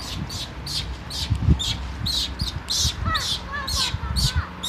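Birds chirping: a steady run of short high chirps, about three a second, with lower down-slurred calls joining about three seconds in. Low rumbling thumps on the microphone sit underneath, the strongest about a second and a half in.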